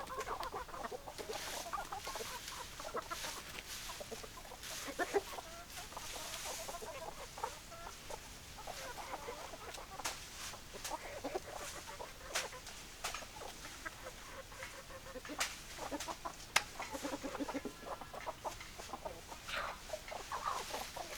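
Domestic hens clucking, a scatter of short calls throughout, with a few sharp ticks here and there.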